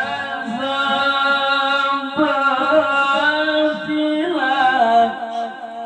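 A male qori reciting the Quran in the melodic tilawah style, holding long ornamented notes with a shift to a new note about two seconds in. The line fades out near the end.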